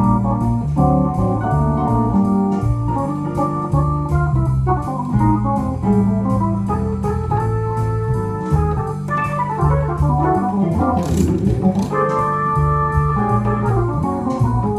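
Hammond-style electronic organ playing swing jazz: sustained chords over a stepping bass line, with a brief sweep up the keyboard about eleven seconds in.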